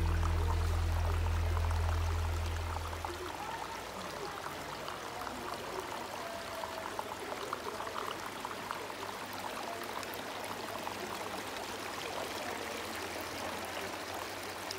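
Water trickling and splashing steadily from running decorative garden fountains, tiered rock-style cascades among them. A low music note fades out over the first three seconds.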